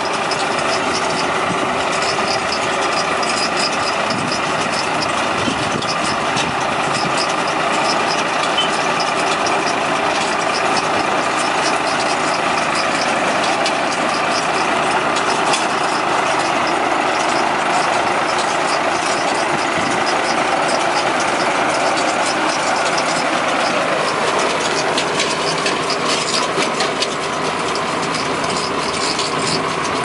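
A tractor engine running steadily while it pulls a Kartar straw baler that is picking up paddy straw, the baler's machinery running along with it. Fast light rattling grows in the last few seconds.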